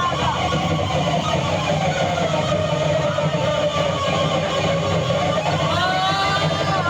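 A band playing rock, led by an electric guitar with long sustained notes that bend in pitch over a steady low backing.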